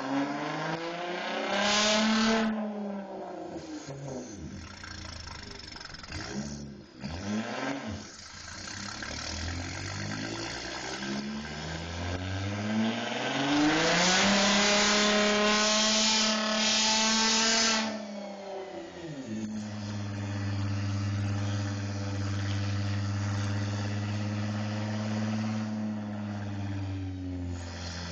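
Audi S4 B5's twin-turbo 2.7-litre V6, with a 3-inch straight-pipe exhaust, running on a chassis dyno. The engine revs up and down twice, then makes a long full-throttle pull that climbs in pitch for several seconds and holds loud at the top. It cuts off sharply about two-thirds of the way in and settles to a steady idle.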